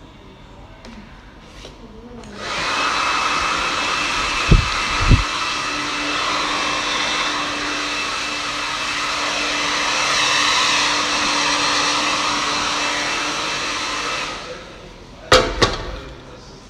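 Handheld hair dryer switched on about two seconds in, blowing steadily for about twelve seconds, then switched off. Sharp knocks come twice soon after it starts and twice just after it stops.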